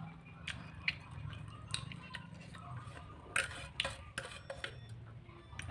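Cutlery clinking and scraping on a plate during eating, about seven separate sharp clicks, a cluster of them around three and a half to four seconds in.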